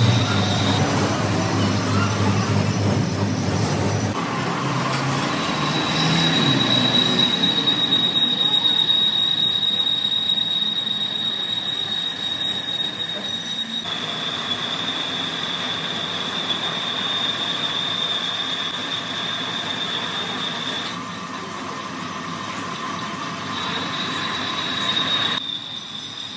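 Crankshaft-making factory machinery running with a steady high-pitched squealing whine over a noisy background. The whine shifts slightly lower in pitch partway through, stops, then returns near the end; a lower rumble comes before it at the start.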